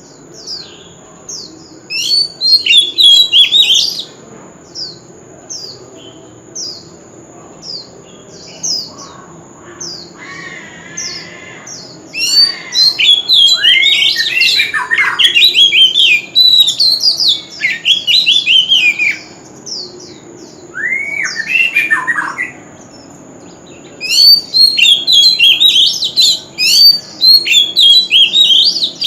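Male oriental magpie-robin singing in loud bursts of varied, quick whistled phrases, with short high notes repeated at a steady pace between the bursts. A faint steady high-pitched tone runs underneath.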